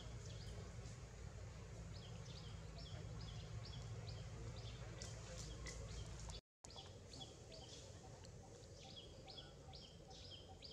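A bird calling over and over in forest, short high notes each falling at the end, about three a second, over a faint low rumble. The sound cuts out completely for a moment about six seconds in, then the calling carries on.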